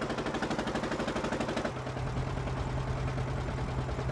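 Small wooden boat's engine running, a rapid even pulse of about ten beats a second; its tone drops lower a little under two seconds in.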